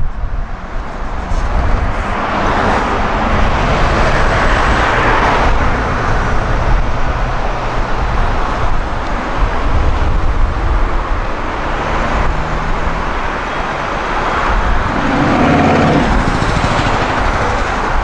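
Articulated city bus driving past and pulling away in street traffic. Heavy wind buffets the unshielded microphone throughout.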